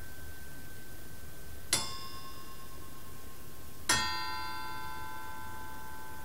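A steel brush-cutter tipped saw blade, the Maruyama Ultra of SKS5 steel, is struck twice with a screwdriver handle about two seconds apart. Each strike gives a bell-like metallic ring, a high 'kaan', and the second is louder and rings on longer. The pitch of the ring is used as a test of the steel's hardness: the harder blade rings higher.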